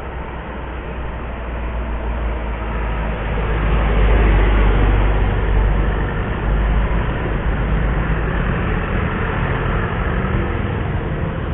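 Road traffic passing close by: cars, motorcycles and trucks, engines and tyres, swelling to loudest about four seconds in. A heavy vehicle's low engine hum runs through the later part.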